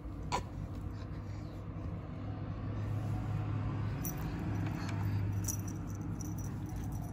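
A steady low hum, with light rustling and a few sharp clicks from a cat wand toy's paper streamers as the toy is shaken and batted by a kitten.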